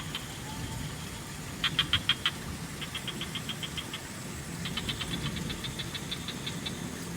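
Frogs calling in runs of rapid clicking pulses, about eight a second, three series in a row with the last lasting about two seconds, over a steady low background hum.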